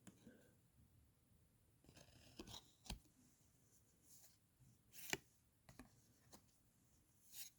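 Near silence broken by a few faint taps and rustles of trading cards being handled and laid down, the clearest about three and five seconds in.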